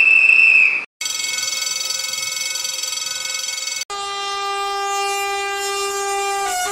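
Train horn blowing in long held blasts: a high note cuts off just under a second in, then after a brief gap a chord holds for about three seconds, followed by a lower chord that starts to fall in pitch at the end.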